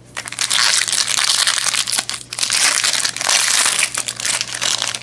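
Foil wrapper of a Topps Chrome baseball card pack being torn open and crumpled by hand: loud, continuous crinkling with two brief pauses.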